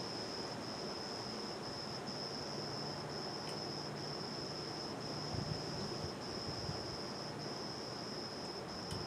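A cricket trilling: one steady high-pitched trill broken by short pauses every second or so, over steady low background noise.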